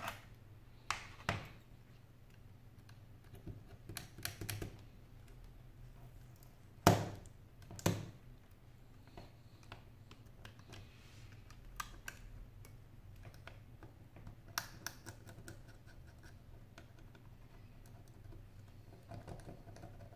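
Scattered clicks and taps of metal tweezers and the opened tablet's metal frame being handled on a wooden desk, with two louder knocks about seven and eight seconds in.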